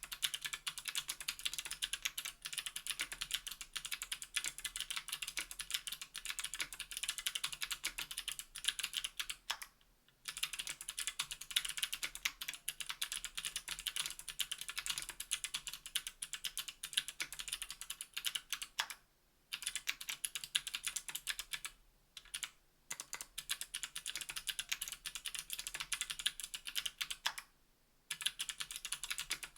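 Steady, fast typing on a 60% aluminium-plate mechanical keyboard with clicky NK_ Sherbet clickbar switches under GMK keycaps: a dense stream of sharp key clicks, broken by brief pauses about 10 s, 19 s, 22 s and 28 s in.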